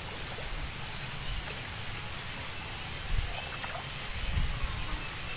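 Shallow muddy ditch water sloshing and splashing as the two probes of an eel electroshocker are worked through it and a person wades, with louder sloshes about three and four seconds in. A steady high whine sits over it.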